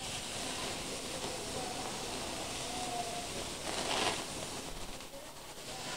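Mahi-mahi fillets sizzling on a very hot grill, a steady hiss that swells briefly about four seconds in as a flame flares up through the grates.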